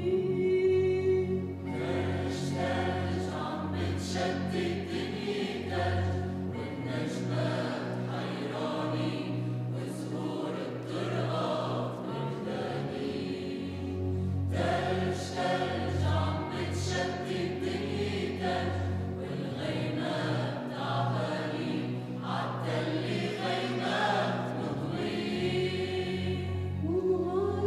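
Mixed choir of men and women singing a Christmas carol, accompanied by acoustic guitar.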